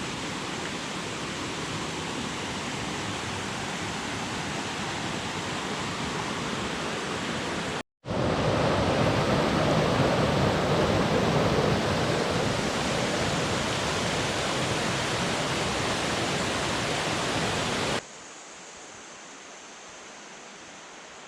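Steady rushing water of a mountain stream, in three edited stretches: cut off abruptly about eight seconds in, back louder, then dropping to a quieter stretch near the end.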